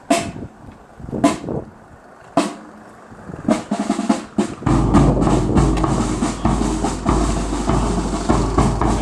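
Marching band drums: single sharp drum beats about a second apart, then quicker snare drum beats join a few seconds in. About halfway a steady low engine sound of a vehicle moving slowly close by comes in under the drums.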